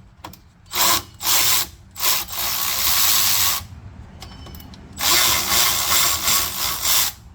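Cordless power tool running in four bursts, two short then two longer ones of about a second and a half to two seconds, spinning out bolts on a rear brake caliper.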